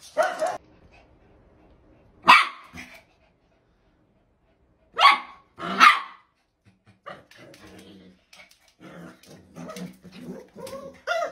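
Small dogs barking: a few sharp single barks, then quieter rough growling and snarling from two dogs play-fighting, with one last sharp bark near the end.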